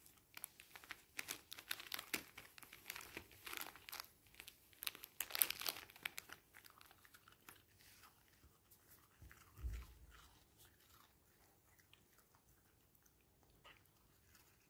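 A small dog crunching and chewing dry food, with the paper wrapper it is eating from crinkling. The crunching is dense for the first six seconds and then grows sparse, with one soft low thump about ten seconds in.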